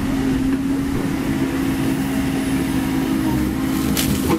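Komatsu PC130F-7 excavator's diesel engine running steadily under work, with a constant hum. A single short, sharp clank comes near the end.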